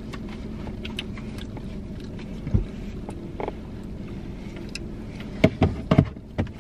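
Steady low hum inside a car's cabin, with scattered small clicks and a quick cluster of sharp knocks near the end as things are handled in the seats.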